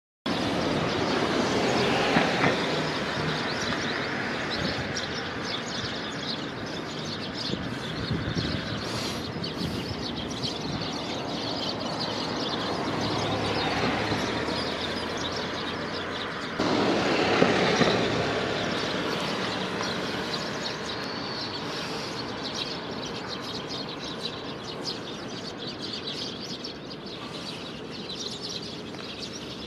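Road traffic noise from passing cars, a continuous rush that swells and fades as vehicles go by, loudest a little past halfway. Eurasian tree sparrows chirp faintly over it.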